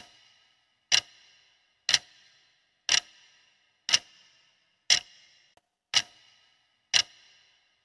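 Countdown timer sound effect: a clock ticking once a second, each tick a sharp click with a short ring.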